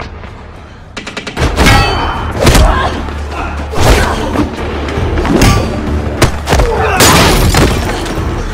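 Dubbed-in fight sound effects: a fast run of sharp blows and body hits, about a dozen of them, with low music underneath.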